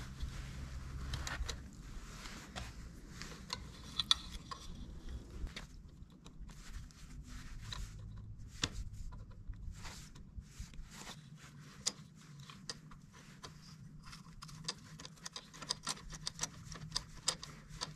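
Small clicks, snips and scrapes of pliers cutting and handling insulated copper wire, and of wires being worked into a junction box, in irregular bursts. A faint low hum runs underneath.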